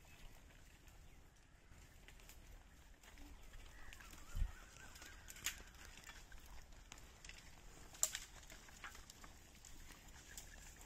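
Leafy tree branches rustling and twigs snapping as they are hooked and pulled down with a long stick, with goats browsing among them. There are a few short sharp cracks, the loudest about eight seconds in, and a low thump about four seconds in.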